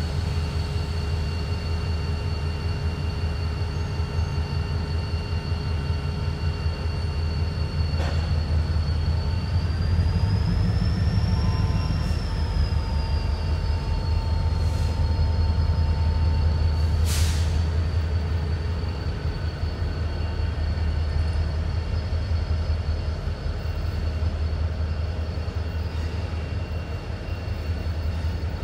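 Norfolk Southern diesel locomotive running with a steady deep rumble as it moves slowly along with covered hoppers. A steady high whine sits over it, and there are two short sharp clicks, about eight and seventeen seconds in.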